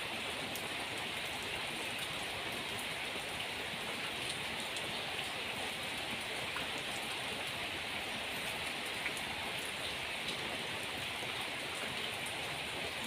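Steady rain pouring down in a new wave of a storm, with a few faint drip ticks.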